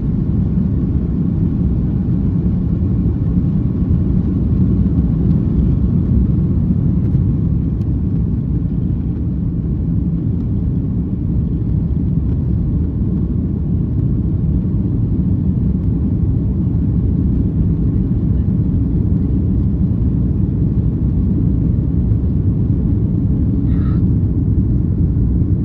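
Steady low rumble of an Airbus airliner's engines and rushing air heard inside the passenger cabin, at take-off power through lift-off and the initial climb.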